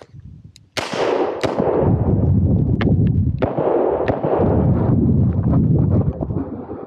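Smith & Wesson 625 revolver fired several times in quick succession, the shots spread over the first four seconds or so, with a steady low rumble between them as the shooter moves.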